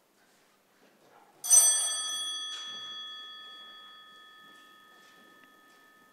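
A small bell struck once about one and a half seconds in, ringing with several clear tones that fade slowly over about four seconds.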